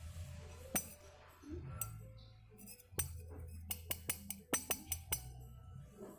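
Spoon and chopsticks clinking against soup bowls during eating: a few single clinks, then a quick run of about eight clinks in the second half, over a low steady hum.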